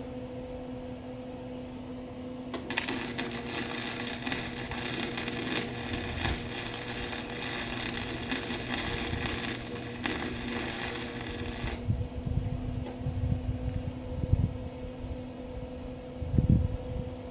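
Welding arc crackling steadily for about nine seconds, starting a few seconds in and cutting off suddenly, over a steady low hum. A few low thumps follow near the end.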